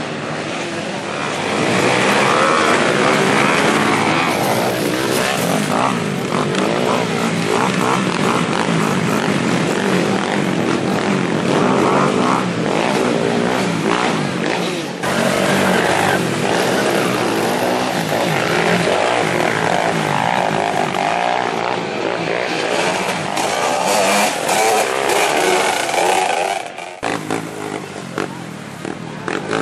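Off-road enduro dirt-bike engines revving, their pitch rising and falling again and again as the throttle is opened and closed. The level drops suddenly near the end.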